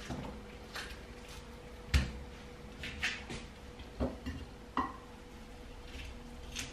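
A kitchen knife cutting through watermelon and knocking on a wooden chopping board, with pieces set down on a plate: a few scattered knocks and clicks, the loudest about two seconds in.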